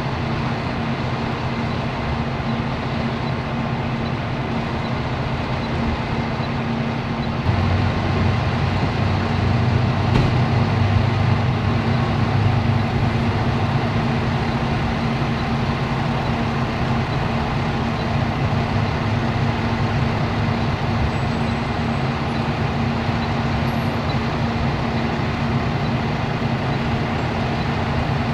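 A heavy vehicle's engine running steadily, a continuous low drone with a steady hum. It grows louder about seven seconds in.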